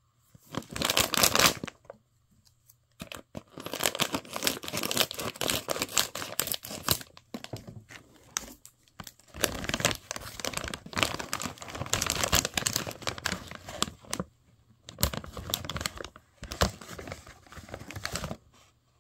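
Plastic snack bag crinkling and tearing as it is handled and pulled open, in four bouts of several seconds each with short pauses between them.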